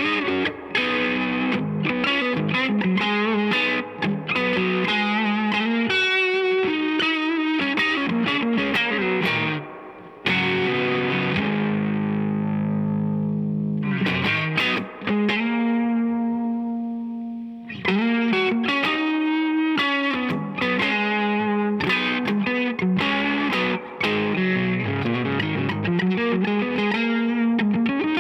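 Electric guitar (a Stratocaster with Fender Vintage '65 single-coil pickups) played through a Mesa Boogie California Tweed amp with some overdrive: quick picked lead lines and chords, with two held notes left to ring out and fade around the middle.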